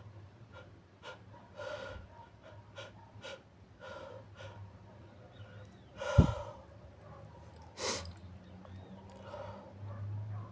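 A person's repeated short, wet sniffles and gasping breaths from a congested nose. About six seconds in comes one muffled sneeze, the loudest sound, followed by a sharp sniff under two seconds later.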